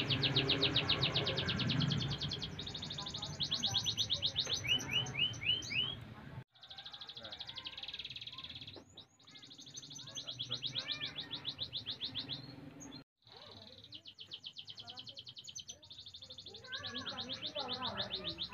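Domestic canary singing a long song of fast, high trills of rapidly repeated notes, with a short run of rising whistled notes about five seconds in. The song breaks off sharply twice.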